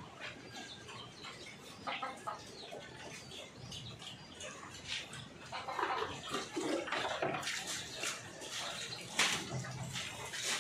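Pigs eating wet feed from bowls: irregular slurping and chomping with many short wet clicks, heaviest in the middle of the stretch.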